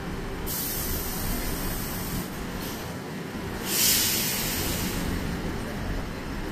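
Steady low rumble of city traffic, with a loud hiss that starts suddenly about half a second in, grows louder near four seconds, and cuts off about five seconds in.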